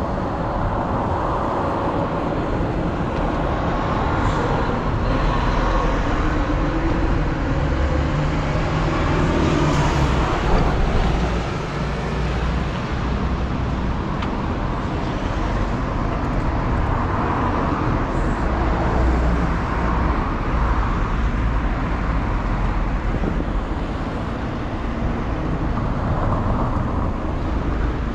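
Road traffic noise with cars passing, heard from a moving bicycle, with wind rumbling on the microphone.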